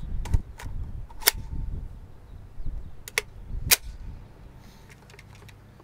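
Sharp metallic clicks of an APS Stechkin machine pistol being loaded. A magazine of cartridges goes into the grip, with a sharp click about a second in as it seats, then a quick pair of clacks and a loud one a little after three seconds as the gun is readied. It goes quiet after about four seconds.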